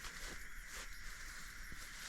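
Faint, scattered rustles in dense vegetation over a steady high-pitched background hiss.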